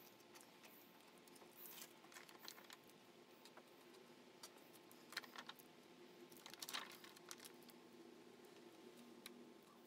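Near silence broken by faint scrapes and light clicks of a plastic container and a scraper being handled over a shelf tray that is being coated. The strongest clicks come about a third of the way in and again past the middle.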